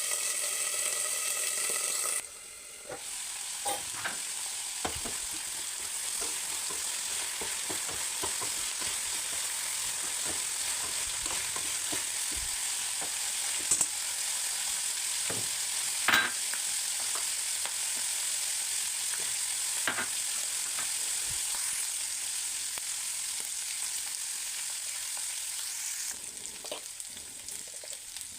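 Food frying in hot oil in a pan: a steady sizzle, with occasional sharp clicks of a utensil stirring against the pan.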